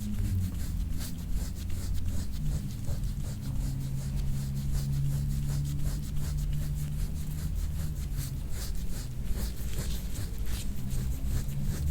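Hands rubbing and kneading over skin and clothing during chiropractic soft-tissue work: a run of soft scraping and rustling strokes over a low steady hum.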